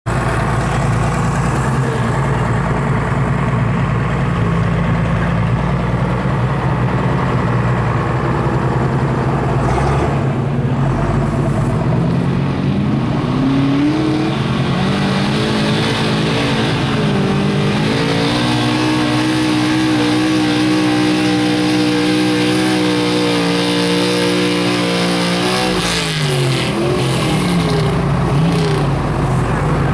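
Pickup truck's engine under full load pulling a weight-transfer sled: it runs steady at first, climbs in pitch in a couple of steps about halfway through, holds high and steady for several seconds, then falls off near the end as the pull ends.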